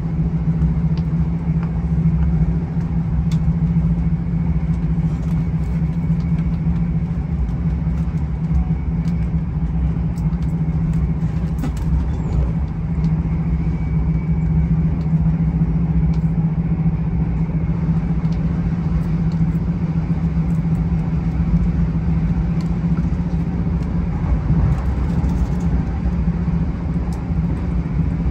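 NSW XPT diesel passenger train running with a steady low engine drone and rumble, with scattered faint clicks.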